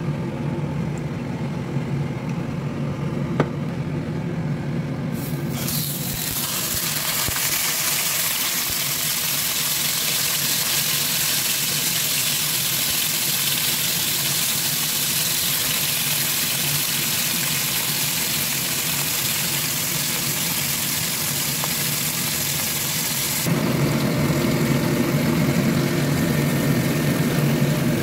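Cod frying in hot oil in a nonstick pan: a loud, even sizzle starts suddenly about five seconds in and keeps going, over a steady low machine hum. Near the end the sizzle eases and the hum grows louder.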